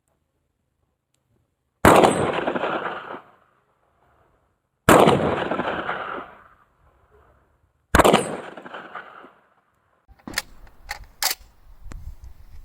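Typhoon F12 12-gauge semi-automatic shotgun firing three shots about three seconds apart, each a loud blast with roughly a second of echo rolling away. A few sharp clicks follow near the end.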